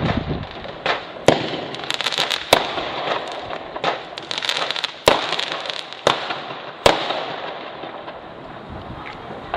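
Fireworks going off: a series of sharp bangs, with bursts of rapid crackling pops between them, thinning out over the last few seconds.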